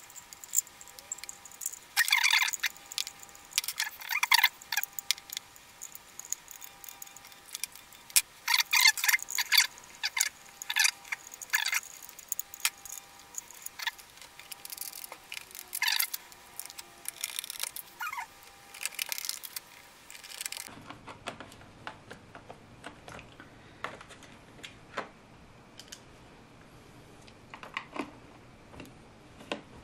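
Sharp plastic clicks, taps and rattles as a megaphone's handle and trigger housing, with its wiring, is handled and fitted back onto the horn body. The clicks come in busy clusters for the first two-thirds, then turn fainter and sparser.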